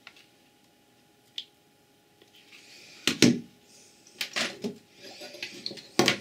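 Hard objects being handled and set down on a wooden tabletop. After a quiet couple of seconds with one faint click come several knocks and clunks with rustling; the loudest knock is about three seconds in and another comes near the end.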